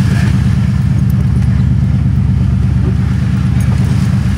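Pickup truck's engine running steadily, heard from inside the cab as the truck drives through flooded, muddy dirt-road puddles.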